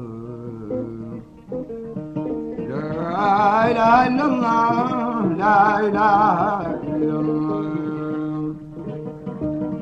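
Mauritanian Hassaniya music: a plucked guitar plays a repeating melody. From about three seconds in, a voice joins with a long, ornamented sung line with heavy vibrato, which fades out after about seven seconds, leaving the guitar.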